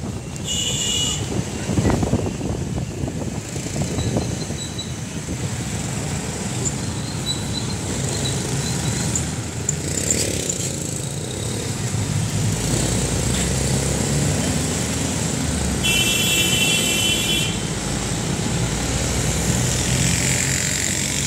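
Steady engine and road noise from a vehicle driving along a city street in traffic. A short high-pitched tone sounds twice, near the start and again about two-thirds of the way through.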